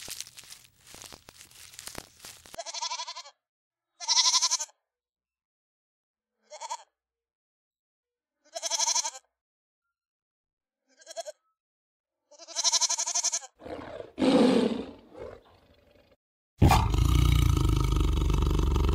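Crackly clicking for the first couple of seconds, then six short pitched animal calls spaced a second or two apart and a rougher, noisier call. About three seconds before the end a lion begins a loud, sustained roar.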